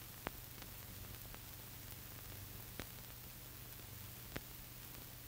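Steady faint hiss and low hum with three sharp clicks: the bare noise floor of a silent archival film transfer, with no sound from the passing tanks.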